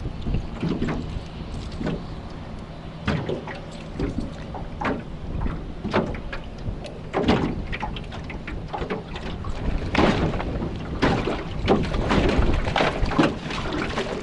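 Gale-force wind buffeting the microphone, with choppy water slapping and splashing in short irregular bursts.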